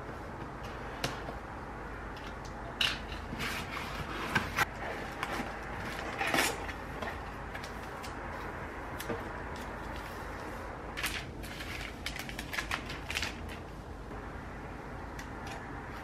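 Cardboard packaging being opened by hand: a seal sticker peeled, flaps lifted and a boxed cordless vacuum slid out, giving scattered taps, scrapes and rustles of cardboard and plastic film with a few sharper knocks.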